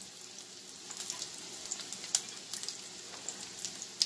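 Breadcrumb-coated cod croquettes shallow-frying in hot oil in a pan: a steady sizzle with scattered crackles, and sharper pops about two seconds in and near the end.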